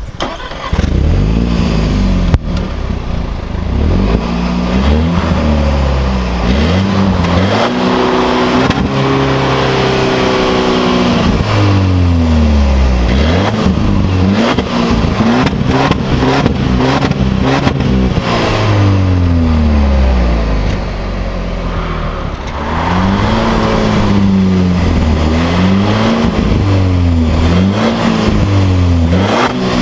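Range Rover Evoque P200's 2.0-litre turbocharged four-cylinder petrol engine revving through an aftermarket valved sports exhaust, the pitch rising and falling again and again, with a quieter stretch a little past the middle.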